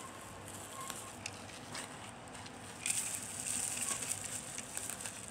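Packaging being handled: a few small clicks and taps, then louder rustling and crinkling from about three seconds in.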